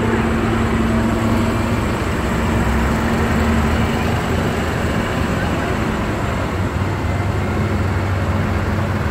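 Tractor engines running steadily as a convoy of light-decorated farm tractors drives past on the street.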